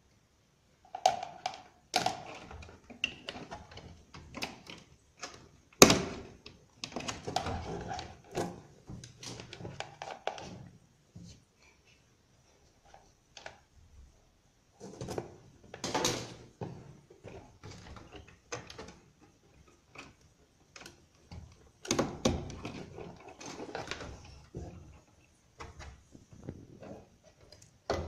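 Close-up handling noise of rewiring a washing machine's control panel: irregular clicks, knocks and scraping as wires and spade crimp terminals are worked with pliers against the plastic panel. The sharpest knock comes about six seconds in.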